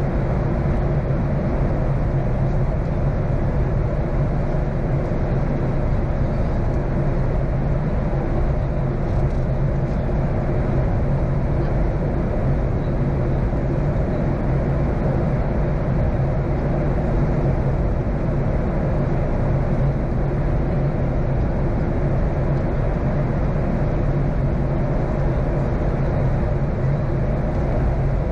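Steady cabin noise inside a Boeing 737-800 in high-speed flight. The CFM56-7B turbofan engines and the airflow make an even rush with a constant low hum under it, unchanging throughout.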